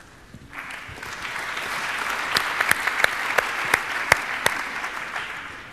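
Audience applauding, swelling about half a second in and fading near the end, with several sharp single claps standing out in the middle.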